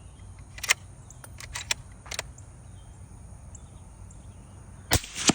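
Bolt-action .308 rifle at the range: several sharp metallic clicks, then two louder sharp reports close together near the end.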